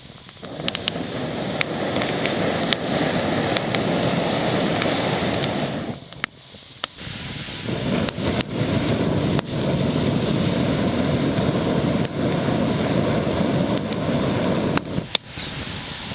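Campfire burning with a steady rush and many sharp crackles and pops; the rush drops away for about a second and a half near the middle, then returns.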